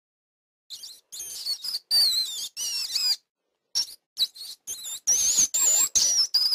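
Rat squeaking: a quick series of high, wavering squeaks, broken by short gaps, starting just under a second in.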